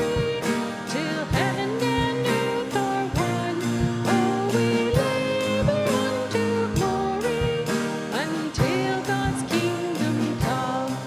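Live worship band playing a hymn-style song on acoustic guitar, electric guitar, keyboard and drum kit, with singing over a steady drum beat.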